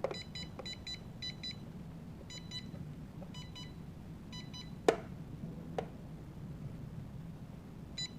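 High electronic beeps from a toy drone's electronics, sounding in quick pairs, about six pairs in the first five seconds and one more near the end. Two sharp clicks come in the middle, the first the loudest sound.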